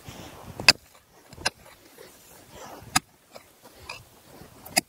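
Pickaxe striking dry, compacted soil, about four sharp blows at uneven intervals with fainter knocks between. The pick is breaking up a hard, shallow layer of bone-dry soil to loosen it.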